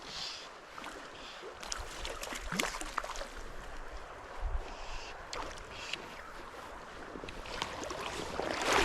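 Water of a small stream running, with wind buffeting the microphone from about two seconds in and scattered sharp clicks and splashes.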